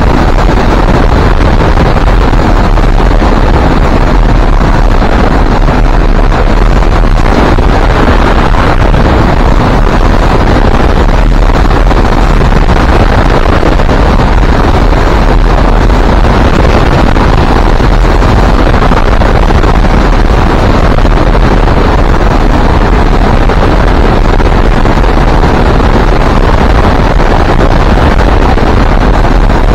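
Loud, steady wind rushing and buffeting over the microphone.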